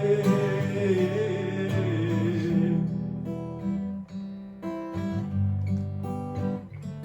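Acoustic guitar playing chords in an instrumental break of a song. For the first three seconds a singer holds the last note with vibrato; after that the guitar plays alone in short, separate strums.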